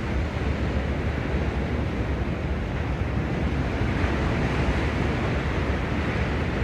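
Sea waves washing onto the shore in a steady rush, with wind rumbling on the microphone.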